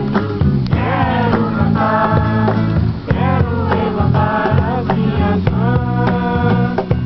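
A group of people singing a worship song together, accompanied by guitar.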